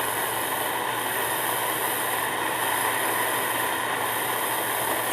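Gas soldering torch flame hissing steadily while heating a joint for soldering.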